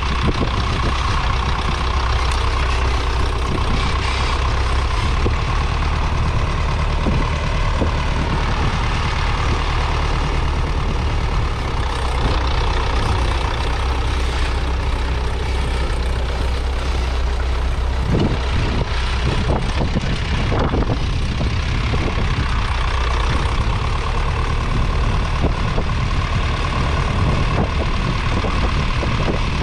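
1958 Massey Ferguson 35's three-cylinder 2.5-litre diesel engine running steadily under load while pulling a two-furrow mounted plough through the soil.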